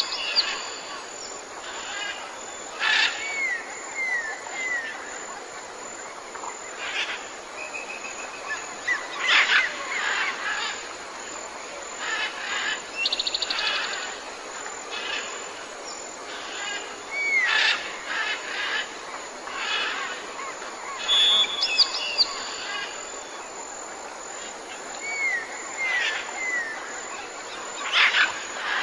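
Jungle ambience: several birds calling over a steady background hiss. One bird gives short downward-slurred whistles in groups of three or four, and another gives a brief fast trill about halfway through.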